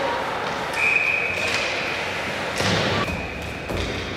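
A referee's whistle blows a single steady shrill note about a second in, stopping play, followed by a thump near the middle over the steady noise of the ice rink.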